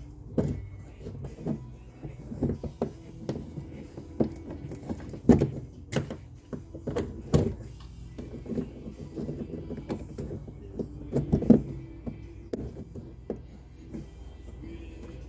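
Irregular clicks and knocks of hands handling copper pipework and isolation valve fittings, the loudest a few sharp knocks about five, seven and eleven seconds in, over steady background music.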